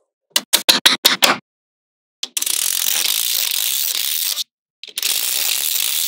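Small magnetic balls clicking together: a quick run of about seven sharp clicks, then two long stretches of dense, rapid rattling as many balls clatter together at once, split by a short pause.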